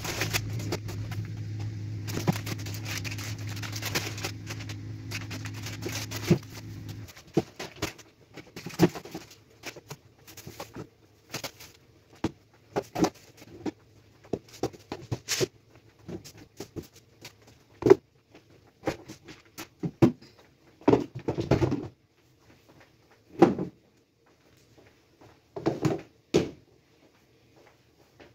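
Plastic storage containers, cans and packets knocking and clattering as they are lifted one by one out of a kitchen pull-out drawer. A low steady hum runs under the first several seconds and cuts off.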